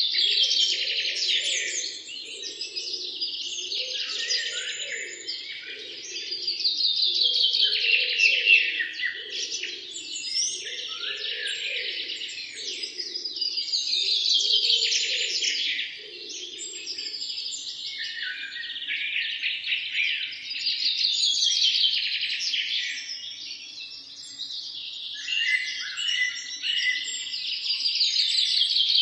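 Songbirds singing: high, fast trilled phrases that sweep downward, repeated every six or seven seconds. For the first half there is also a lower call, pulsing about once a second, which stops about halfway through.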